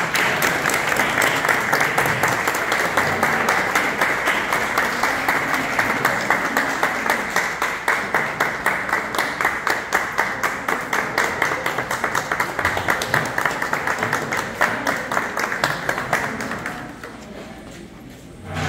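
Audience applauding, many people clapping at once, dying away near the end.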